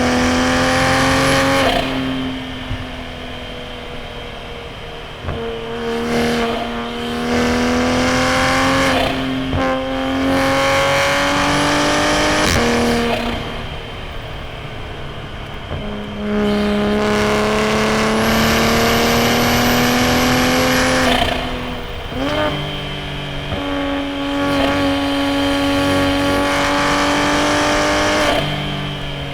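Toyota A90 Supra's B58 turbocharged inline-six, breathing through a straight-piped titanium single-exit exhaust, pulling hard up through the revs again and again, its pitch dropping sharply at each gearchange or lift. A faint high whistle rises with several of the pulls.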